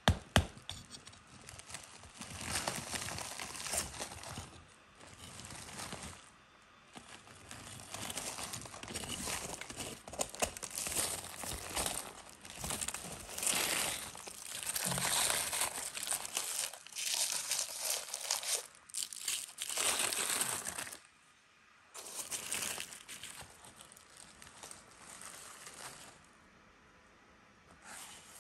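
Baked mud crust cracking and crumbling as a knife breaks it open, with the aluminium foil beneath crinkling as it is pulled away, in repeated bursts with short pauses between them. A few sharp knocks at the start.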